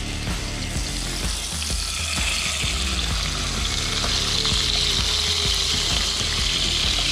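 Fish pieces sizzling in hot oil in a frying pan, the sizzle building up about two seconds in and growing louder as more fish goes in.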